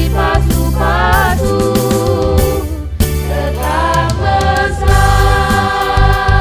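A family vocal group of mixed voices sings a church song in harmony, over a steady low bass line and beat. About four seconds in, the voices settle into long held notes.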